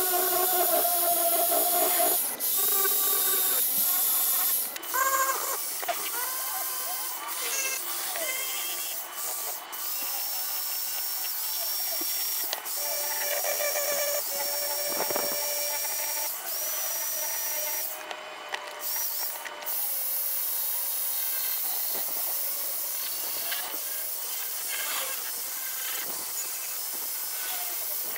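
Electric drill spinning a buffing wheel against the metal bottom of a frying pan, polishing it with cut-polish compound. The motor's whine shifts and wavers in pitch as the wheel is pressed on and moved, over a steady hiss from the wheel on the metal.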